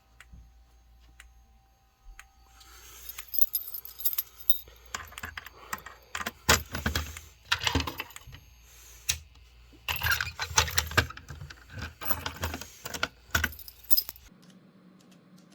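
Irregular rattling and sharp clicks of something being handled, with a low steady hum underneath that cuts off near the end.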